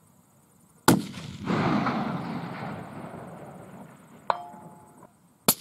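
Two rifle shots about four and a half seconds apart, each a sharp crack followed by a long rolling echo that dies away over a few seconds. Between them comes a short metallic click with a brief ring.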